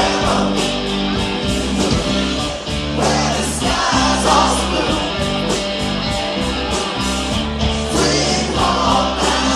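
A live rock band playing, with guitar, bass and a steady drum beat, and singing at times.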